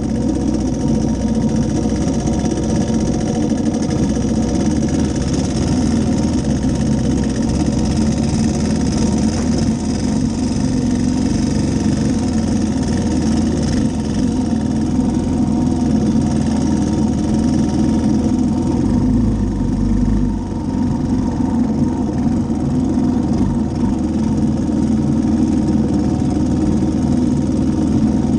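Three-wheeler ATV's engine running steadily under way, with tyre noise from the gravel track mixed in.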